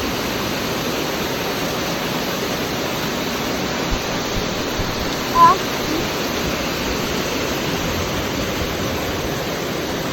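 Steady rush of running water, a stream or waterfall, with one brief high chirp about halfway through.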